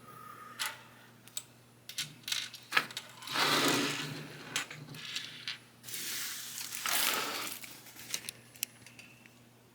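Small plastic toy parts and packaging being handled: scattered sharp clicks and taps, with two stretches of rustling, one about three seconds in and one about six seconds in.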